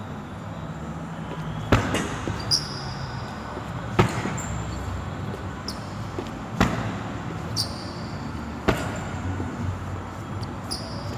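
Fists thudding into a hanging Everlast heavy bag: four hard punches two to three seconds apart, with a few lighter hits. Short high squeaks fall in between.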